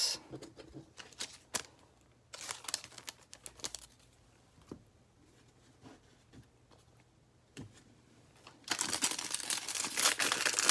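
A few faint handling clicks, then from about nine seconds in a foil trading-card pack (2020 Panini Mosaic football) crinkling and being torn open by hand.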